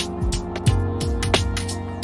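Background music with a steady beat: a drum hit about every two-thirds of a second over a sustained bass line.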